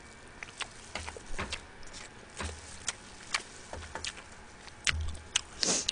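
Close-miked chewing of spicy steamed crab and seafood: irregular wet mouth clicks and soft low thumps every second or so, with a short breathy sound near the end.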